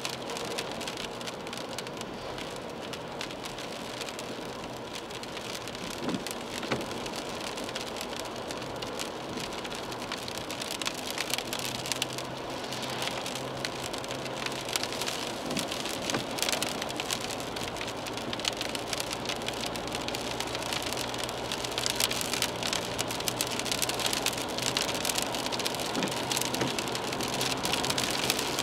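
Rain hitting a car's windscreen and roof, heard from inside the cabin while driving, over the steady hum of road noise. The drop hits grow denser and louder about halfway through.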